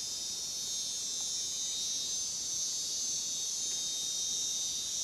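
Steady, high-pitched chorus of swamp insects, a continuous shrill buzz that holds level without a break.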